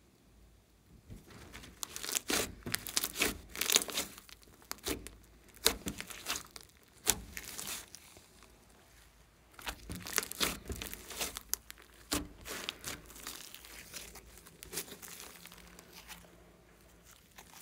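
Thick fluffy slime mixed with clay and glitter being stretched and pulled apart by hand, giving off dense runs of sticky clicks and pops. It starts about a second in and eases off briefly around the middle.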